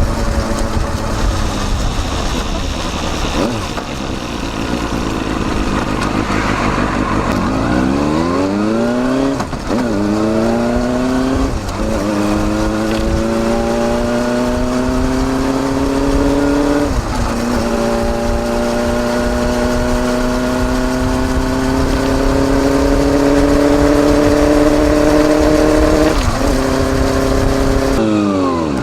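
Exhaust of a Kawasaki Balius 250 cc inline-four through a Wr's aftermarket muffler with its baffle fitted, heard from just above the silencer. It runs low and steady for the first several seconds, then pulls away, its pitch rising through the gears with four upshifts, each a quick drop in pitch, and falls steeply near the end.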